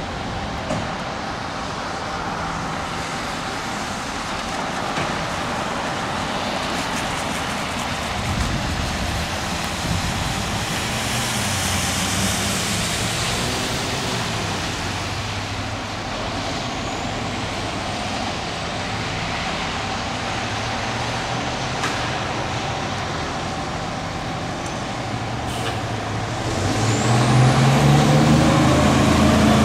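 2006 E-One Typhoon fire engine's diesel engine idling steadily, then revving louder about 27 seconds in as the truck pulls away. A siren begins to rise at the very end.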